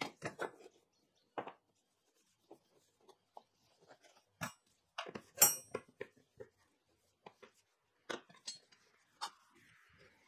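Blackened mild steel flat bars tapping and clinking against each other and the wooden workbench as they are lifted and wiped down with boiled linseed oil. About a dozen scattered taps; the loudest, about five and a half seconds in, has a brief metallic ring.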